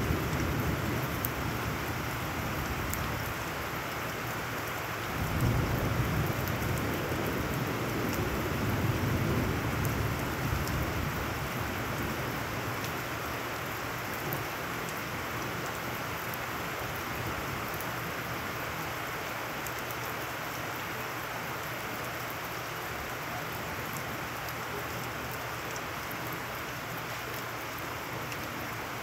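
Heavy rain pouring onto wet ground and puddles, a steady hiss, with thunder rumbling low at the start and again from about five to eleven seconds in.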